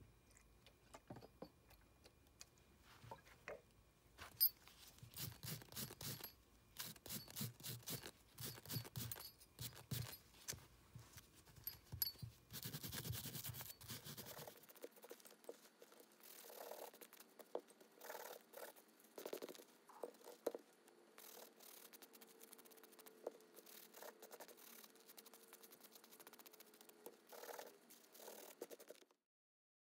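Small wire brush scrubbing steel nail setters wet with mineral spirits: quiet, irregular runs of short scratching strokes.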